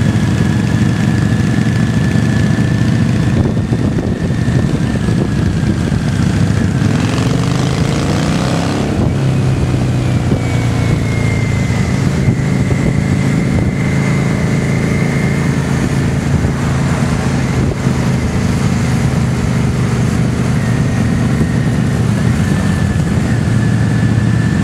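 Engines of a group of cruiser motorcycles running steadily, heard from one of the bikes riding in the column. The pitch shifts briefly about eight seconds in, as the engines change speed.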